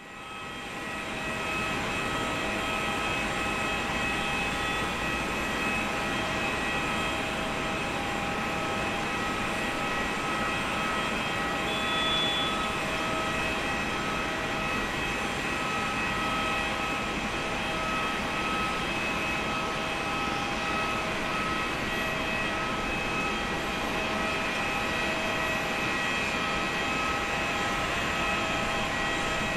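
Boeing 787-8's GEnx-1B turbofan engines at low taxi thrust: a steady jet whine made of several fixed high tones over a rushing hiss, holding level without spooling up.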